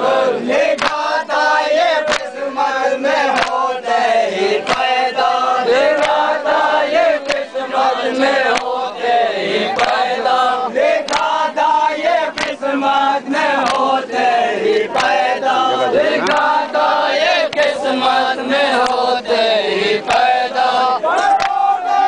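A crowd of men chanting a Shia mourning chant together, steady and loud. Many sharp clacks or slaps are scattered irregularly through it.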